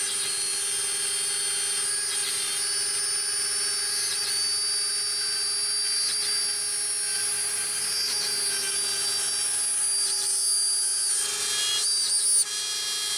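Router spindle of a homemade CNC router running at speed while cutting a curved line of indents into a flat panel: a steady high whine that dips in pitch briefly a few times.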